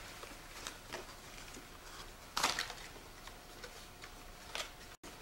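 Wrapping paper and cardboard packaging rustling and crinkling as a present is unwrapped by hand, with a louder crackle about two and a half seconds in.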